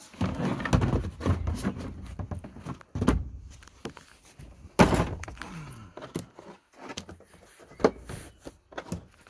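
Hard plastic tool carry cases being shifted and lifted, knocking and scraping against each other in a run of irregular thunks and clicks, with one loud knock about five seconds in.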